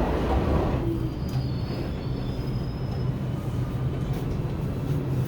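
New York City Subway train running with a steady low hum and rumble, with a faint high wheel squeal for a couple of seconds starting about a second in.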